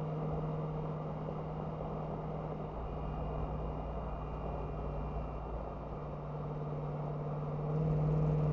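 Kenworth W900B semi truck running at highway speed: a steady diesel drone mixed with road noise, swelling a little near the end.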